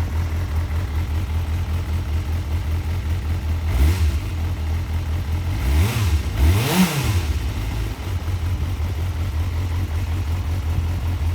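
Stock Suzuki GSF400 Bandit's 400cc inline-four idling on its factory exhaust, blipped three times: a short rev about 4 seconds in, then two quick rising revs a little after 6 and 7 seconds, the last one the highest, before it drops back to a steady idle.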